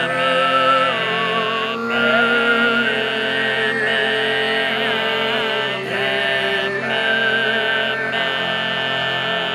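Overtone singing over a sustained vocal drone. Voices hold a steady chord while a thin, whistling overtone melody moves slowly above it.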